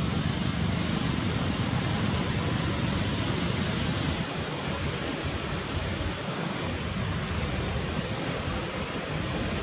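Steady rushing outdoor noise, with a low rumble that rises and falls and a few faint short high chirps.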